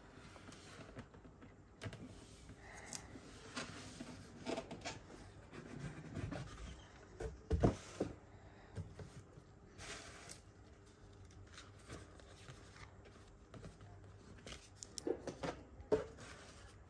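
Unboxing handling sounds: a cardboard gift box lid lifted off and set down with a soft thump, then tissue paper and a cotton dust bag rustling and rubbing under the hands in short, scattered bursts.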